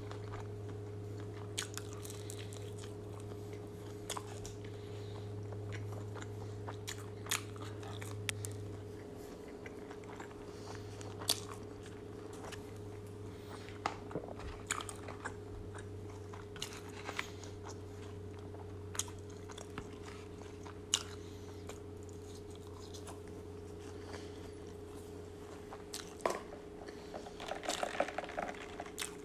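Close-miked chewing of a Big Mac and McDonald's fries: soft crunches and wet mouth clicks scattered through, with a flurry of clicks near the end, over a steady low hum.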